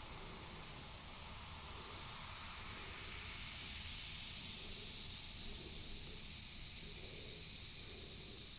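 Baking soda and vinegar fizzing as the foam of carbon dioxide bubbles rises: a faint steady hiss that swells a little midway.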